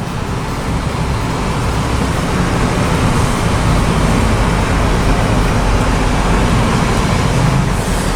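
Steady road and engine noise of a car being driven, growing a little louder over the first second or two.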